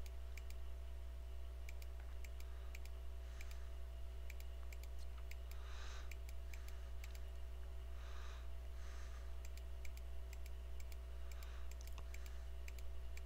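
Computer mouse clicking in scattered single clicks, over a steady low electrical hum.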